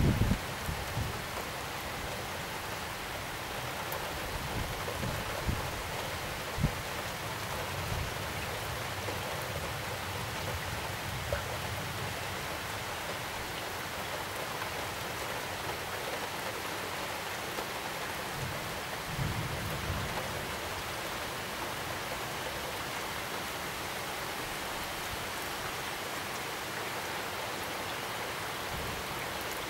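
Heavy rain pouring down in a steady hiss, with a few brief low rumbles. The strongest rumble comes right at the start and another about twenty seconds in.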